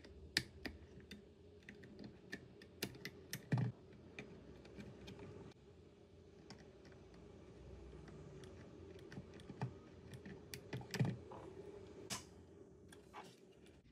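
Faint, irregular clicks and taps of small hand tools and fingers working on a DJI Mini 4 Pro's camera gimbal and its rubber mounts, with a few sharper clicks among them, over a low steady hum.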